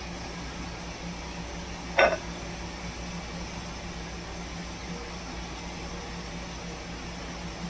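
Steady low electrical hum and hiss, broken about two seconds in by a single short clink that rings briefly.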